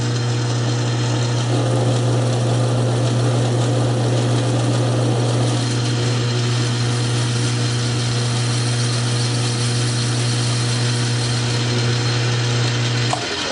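South Bend metal lathe running with a steady hum while taking a turning cut, with stringy chips coming off the workpiece. The cutting noise is rougher for a few seconds near the start, and the lathe shuts off near the end.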